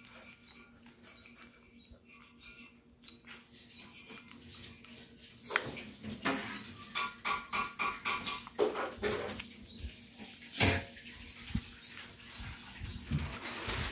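Silicone spatula stirring thick mayonnaise garlic dip in a ceramic bowl. It is quiet at first, then from about halfway come dense stirring strokes and clicks against the bowl, with one sharp knock about eleven seconds in.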